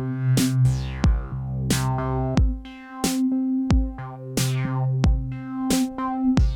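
Techno from a Behringer DeepMind 12 polyphonic analog synthesizer and a Roland TR-8 drum machine. Deep kicks about every 1.3 s alternate with bright open-hat or cymbal hits over held synth chords and bass. The low bass note drops out for a moment a little over two seconds in, then returns.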